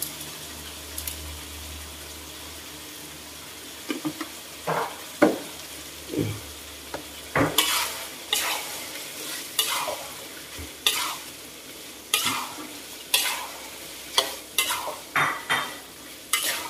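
Chili prawns sizzling in a wok while a slotted metal spatula stirs them. From about four seconds in, the spatula scrapes and knocks against the wok in irregular strokes, roughly one a second, over the steady sizzle.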